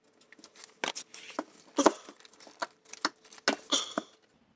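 Old plastic push-in fastener being worked out of a car's plastic underbody panel with a hand tool: irregular small clicks, taps and scrapes of metal and plastic.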